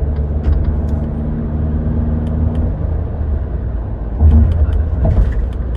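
Cabin noise inside a Mitsubishi Zinger driving at speed: steady low road rumble with an engine drone under light acceleration. There is a low thump about four seconds in, from the tyres going over a bump or joint in the road.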